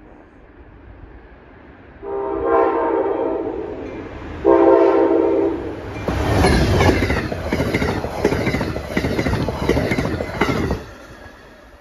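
Amtrak GE Genesis diesel locomotive's horn sounding two chord blasts, the first longer, as the train approaches. Then the passenger train rushes past at speed with loud, rhythmic wheel clatter, which drops away near the end.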